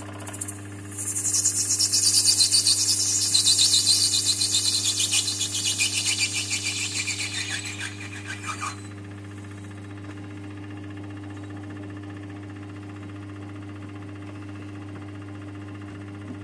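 Parting-off tool on a capstan lathe cutting through the spinning stock: a loud, high-pitched screech with a fast, even pulse that cuts off suddenly about nine seconds in as the blade goes through. The lathe motor hums steadily underneath throughout.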